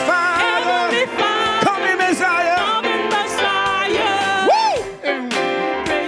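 Live gospel praise music: a singer's voice sliding through runs over a band with a regular beat, with one long swoop up and down in pitch a little after halfway.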